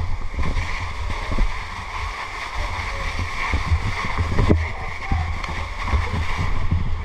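Fire truck engine running steadily, with water rushing and splashing from the hoses.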